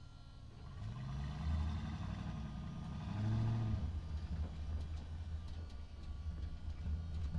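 Truck engine driving through a parking structure: a steady low rumble whose pitch rises and falls twice as it speeds up and eases off.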